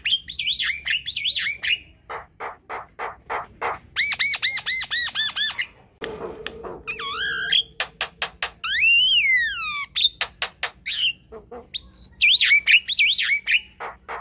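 Javan myna singing a varied, busy song: quick runs of dry clicks, a string of repeated arching notes about four seconds in, and whistled notes that slide up and down, including one long whistle that rises and then falls.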